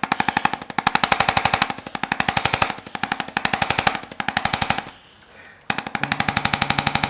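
Handheld chiropractic trigger-gun instrument firing rapid repeated taps as it is run up the spine, coming in bursts of about a second with short breaks and one longer pause about five seconds in. It is used to stimulate the back muscle fibers so the adjustment holds.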